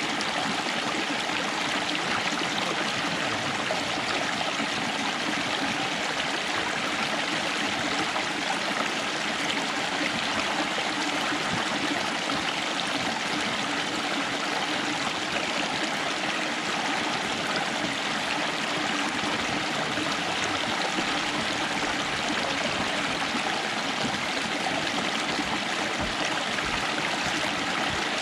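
Hot spring water rushing and churning over rocks in a shallow stream: a close, steady wash of running water.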